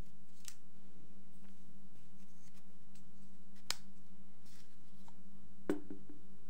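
Small clicks and taps of hands handling a compact camera and pushing a furry clip-on windscreen onto its top, with one sharper click a few seconds in. The loudest knock comes near the end as the camera is set down on a wooden desk, over a steady low hum.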